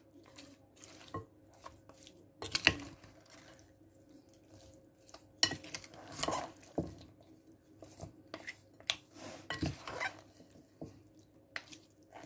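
A spatula stirring spice-coated raw chicken wings in a glass bowl: irregular scrapes and knocks of the spatula and wings against the bowl.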